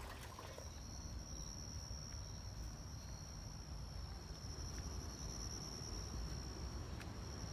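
A steady, high-pitched insect trill that holds without a break, over a low background rumble, with one faint click near the end.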